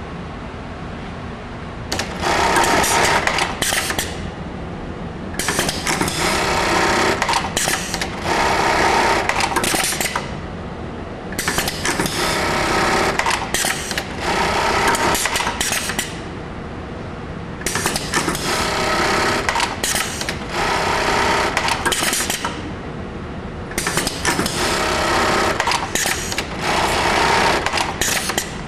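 HAMS MHA-JBL100-J automatic belt-loop attaching machine stitching belt loops onto a denim jeans waistband: its sewing head runs in five bursts of a few seconds each, with short pauses between cycles. A steady hiss continues underneath.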